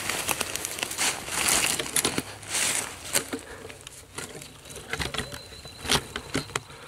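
Dry leaf litter rustling and crunching in irregular short bursts, with a few sharp clicks and snaps.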